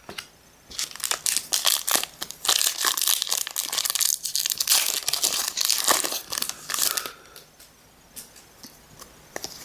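Pokémon trading-card pack packaging being torn open by hand: crinkling and tearing of plastic and foil wrapper for about six seconds, then a few faint rustles.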